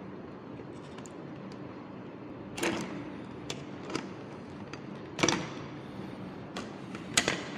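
Small clicks and knocks, about six spread over several seconds, from hands working inside an opened fetal doppler's plastic housing while its transducer-cable connector is unplugged. A faint steady hum runs underneath.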